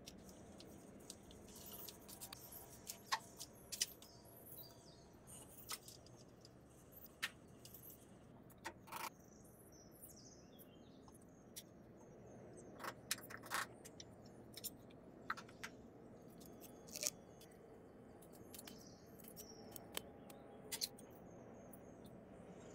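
Faint, scattered light clicks and taps from pastry dough being handled, rolled out with a wooden rolling pin and cut with a knife, over a low steady hiss.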